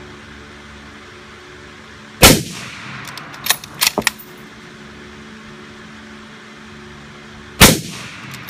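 Two shots from a bolt-action Remington 700 rifle in .308 Winchester, about five seconds apart, each the loudest thing and ringing briefly. About a second after the first shot comes a quick run of sharp clicks and clacks as the bolt is worked to eject the case and chamber the next round, and the same clicks start again just after the second shot.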